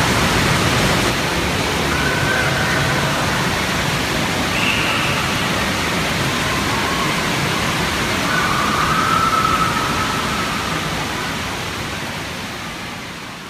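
Indoor water park ambience: a steady rush of spraying and splashing water with faint, echoing children's voices, fading out near the end.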